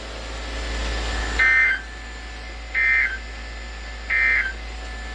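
NOAA Weather Radio EAS end-of-message signal: three short bursts of screechy digital SAME data, about a second and a third apart, which mark the end of the severe thunderstorm warning. Before them is a second or so of radio hiss with a low hum.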